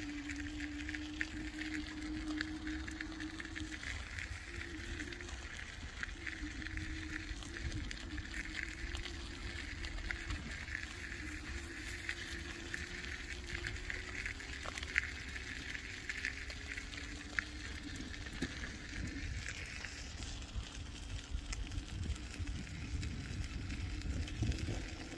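Fat-tyre electric bike under way: a steady motor whine that slowly rises in pitch, over a low rumble of tyres and wind, with scattered small clicks and rattles.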